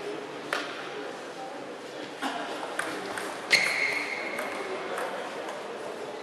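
Table tennis rally: the celluloid ball clicking sharply off bats and table, about six hits at an uneven pace. The loudest hit, a little past the middle, leaves a short ringing ping.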